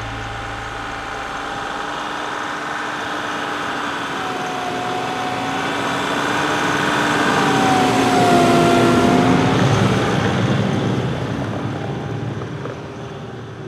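Sno-Trac snowcat's engine running as it crawls through deep powder snow on its tracks, growing louder as it passes close about eight seconds in, then fading as it moves away.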